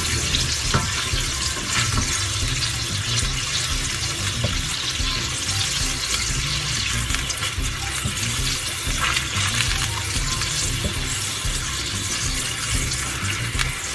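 Beef tenderloin cubes sizzling steadily in a stainless steel frying pan while being stirred with a spatula, the meat being seared until browned.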